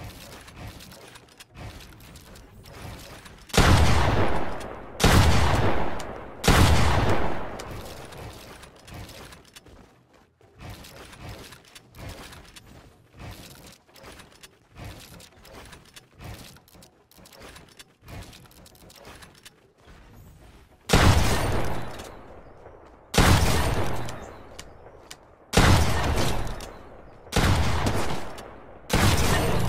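Fireworks exploding. Three loud booms a second or so apart a few seconds in, then scattered fainter pops and crackles, then five more loud booms about two seconds apart near the end, each dying away in a long echoing tail.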